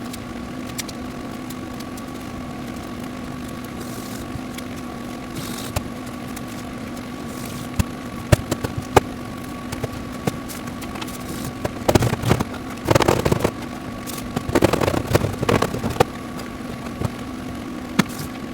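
A steady mechanical hum, like a small motor running, with scattered sharp clicks and two short bursts of clatter about twelve and fifteen seconds in.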